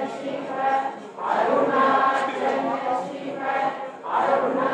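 A group of male voices chanting Vedic hymns in unison, sustained phrases with brief breaks about a second in and near the end as each new line begins.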